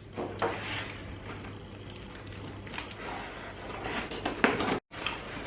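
Handling noise from unboxing a mug: faint rustling of the packaging with light taps and knocks, broken by a brief dropout near the end.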